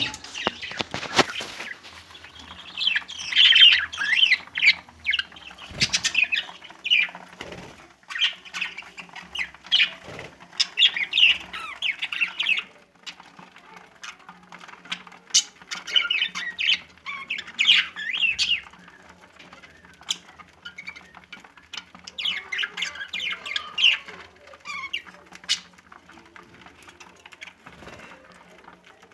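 Budgerigars chattering and warbling in bouts of a few seconds, with sharp clicks and brief flutters between the bouts.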